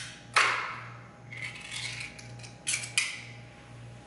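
Clinks and rattles of a cat's food and dish being handled: about five separate sharp knocks with short ringing tails, the strongest about a third of a second in, over a faint steady hum.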